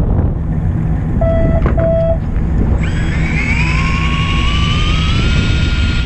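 Two short beeps, then an electric fishing reel's motor winding in line, its whine rising steadily in pitch for about four seconds, over the steady low rumble of the fishing boat.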